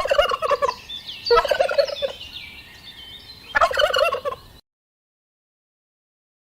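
Three short, rapidly warbling animal calls, the first at the very start, the second about a second later and the third about two seconds after that.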